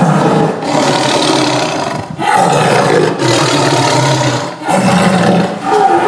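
Tiger roaring in a series of loud, rough calls, each about a second long, with brief breaks between them.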